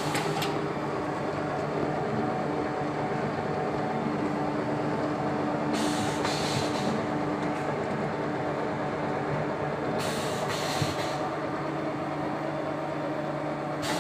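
Detergent cake making machine running: a steady electric motor and gear hum as its rollers work the detergent fed into the hopper. Two short bursts of rougher, hissier noise come about six and ten seconds in.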